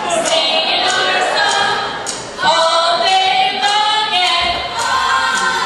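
A group of voices singing an unaccompanied chant, several parts layered and repeating, with held notes; there is a short break about two seconds in before the voices come back in.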